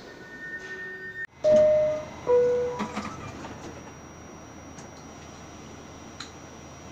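R68A subway car's door-closing chime: two loud held tones, the second lower, signalling the doors are about to close. A few knocks follow, then the steady low hum of the car.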